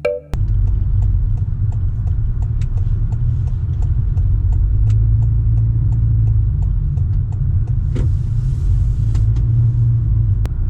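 Steady low rumble of a car driving, heard from inside the cabin, with faint light ticks at an even pace over it.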